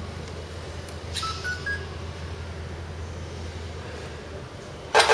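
Three short electronic beeps, each higher than the last, about a second in over a low steady hum. Near the end, the Alan Bond diesel engine sound module in the 1/14 Tamiya Scania R620 model cuts in abruptly and loudly with a rhythmic diesel engine sound.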